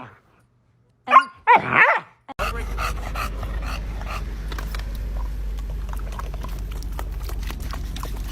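A dog makes two short vocal calls about a second in, as if answering its owner; the second call rises and then falls in pitch. From about two and a half seconds in, a steady low hum with scattered clicks and knocks follows.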